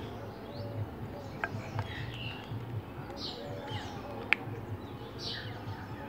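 Birds chirping: scattered short chirps and quick downward-sweeping notes, with a few sharp ticks, the loudest just past four seconds in.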